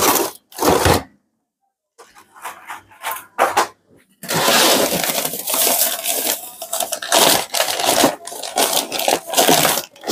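Rummaging through packaged food on a shelf: a few knocks and short rustles, then from about four seconds in a long stretch of plastic packaging crinkling and rustling.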